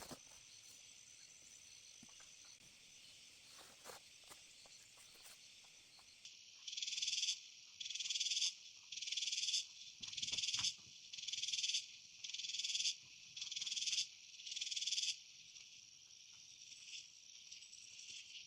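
Rainforest animal chorus: a steady high, insect-like hiss, joined about a third of the way in by a loud call pulsing about once a second, eight times, before it stops and the steady hiss carries on.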